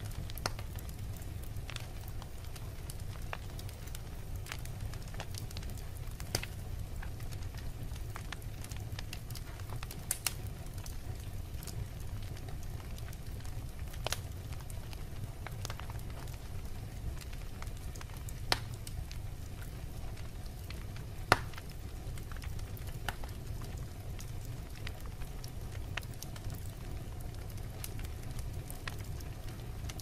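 Wood log fire burning in a fireplace: a steady low rumble of flames under constant small crackles, with a few sharper pops scattered through, the loudest about two-thirds of the way in.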